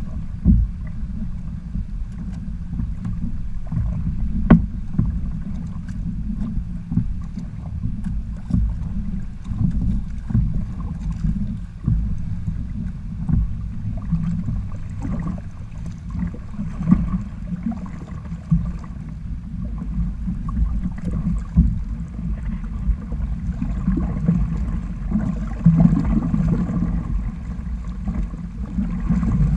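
Wind buffeting the camera microphone and water sloshing and slapping against the hull of a Hobie sailing kayak under way, a steady low rumble broken by a few sharp knocks, the loudest about half a second and four and a half seconds in.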